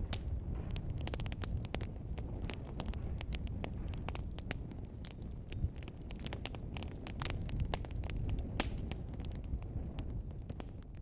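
Wood fire burning in a fireplace, crackling with frequent irregular sharp pops over a low, steady rumble of the flames.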